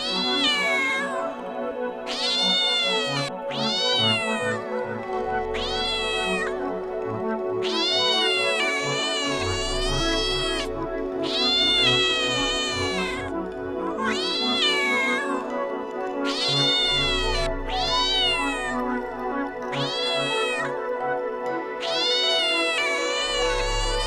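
A cat meowing over and over, drawn-out rising-and-falling meows about one a second, often in pairs, over soft background music with sustained tones and a low pulsing bass.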